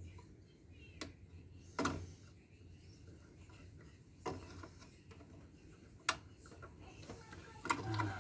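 A handful of sharp clicks and light knocks, about five spread out, from parts and cable being handled during an inverter teardown, with the loudest near the end.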